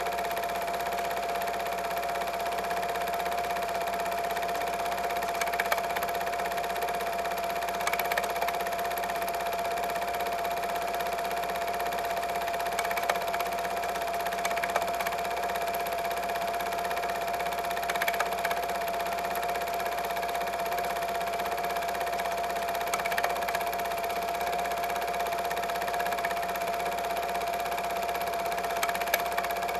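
8 mm film projector running: a steady motor hum with a constant whine and hiss, and a faint click now and then.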